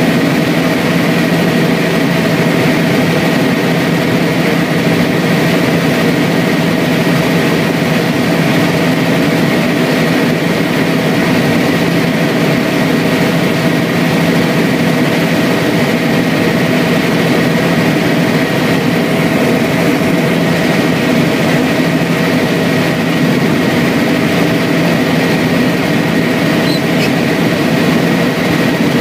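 Helicopter in steady flight heard from inside the cabin: a loud, unchanging engine and rotor drone with a thin steady whine above it.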